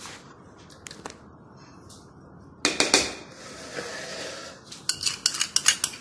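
A spoon clinking and scraping against a mixing bowl as ghee is spooned in: a clatter about two and a half seconds in, then a run of quick clinks near the end.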